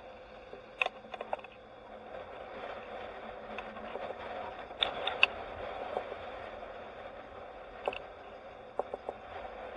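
Steady road and wind noise from a vehicle moving slowly, picked up by a camera mounted outside on its roof, with a few sharp clicks and rattles scattered through it, two of them close together about five seconds in.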